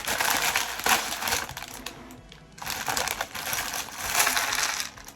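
Plastic LEGO parts bag crinkling and rustling as it is handled, in two stretches with a short lull between.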